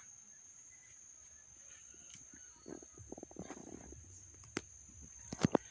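Insects trilling in one steady high tone over the quiet riverside. Faint low sounds come about three seconds in, and a few sharp clicks come near the end.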